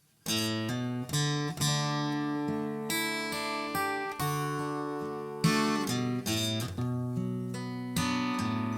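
Acoustic guitar strumming chords in a song's instrumental introduction, starting suddenly just after the opening.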